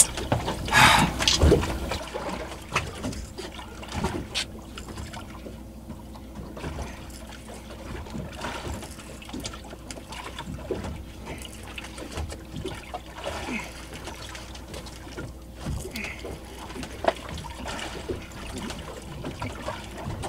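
Small waves lapping and trickling against a fishing boat's hull, with scattered light knocks and a faint steady hum. A brief louder rush of noise about a second in.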